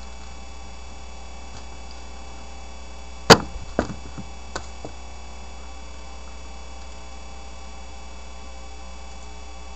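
A shoe slams down with one sharp thud about three seconds in, followed by a few smaller knocks. A steady electrical hum runs underneath.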